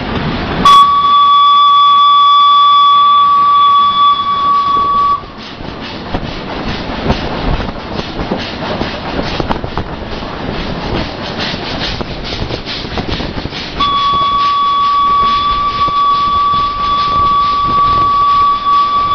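Steam whistle of Indian Railways WP-class steam locomotive WP 7161, heard from the cab: a loud, steady single-note blast of about four and a half seconds starting just under a second in, then a second long blast starting near the end. Between the blasts is the rattling running noise of the moving locomotive.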